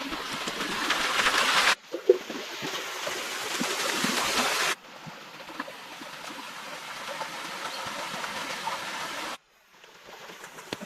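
Stream water rushing in a steady hiss, with small scattered knocks and handling sounds, broken by abrupt cuts into several segments.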